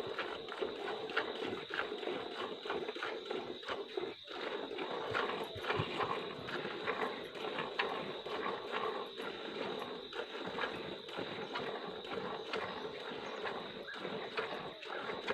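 Hand-milking a cow: repeated squirts of milk from the teats hitting the milk in a plastic bucket, one after another.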